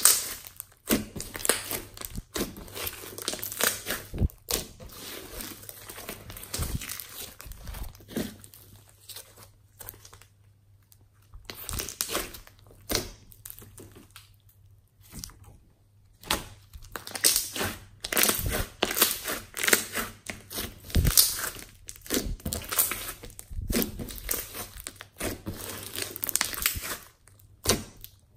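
Hands stretching, folding and pressing a large mass of glossy slime with small bits mixed in: dense, irregular sticky crackling and popping, easing off briefly about ten seconds in and again around fifteen seconds in.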